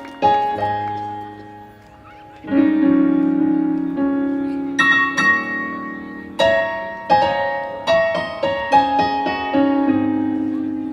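Piano or keyboard playing slow chords and single notes freely, each struck and left to fade, as a solo instrumental passage with no singing.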